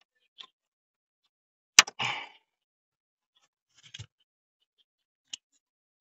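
Hands working on an Opel Vectra C's plastic dashboard trim and its metal retaining clips. A sharp click about two seconds in is followed by a short scrape. A couple of faint knocks come later, then a small tick near the end.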